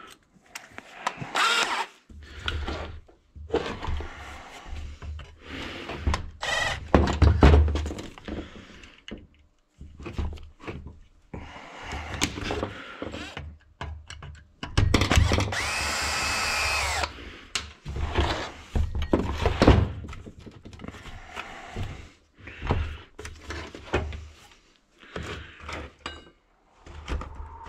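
Cordless 18 V drill/driver running in short bursts to unscrew the muffler bolts of a Husqvarna 61 chainsaw, with the longest steady whining run about halfway through. Metal tools clatter and knock on the steel bench between runs.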